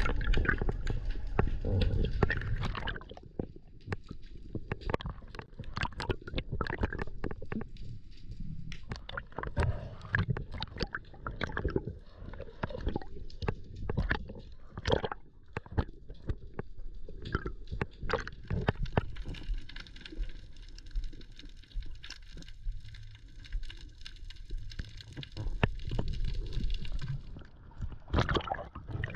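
Underwater sound picked up through a waterproof camera housing: a low rumble with many scattered sharp clicks and crackles. Near the end it gets louder with water sloshing as the camera comes up at the surface.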